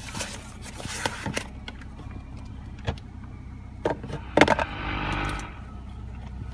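Clicks and taps of a hand working the buttons and knobs of a Hyundai Elantra's climate control panel, over a steady low hum in the car's cabin. A brief rushing noise swells and fades about five seconds in.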